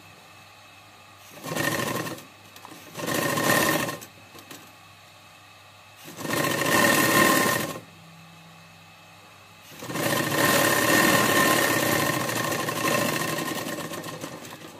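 Industrial sewing machine stitching a seam in four runs: two short ones, a longer one, and a final run of about five seconds that trails off near the end. A low steady hum sounds in the pauses while the fabric is repositioned.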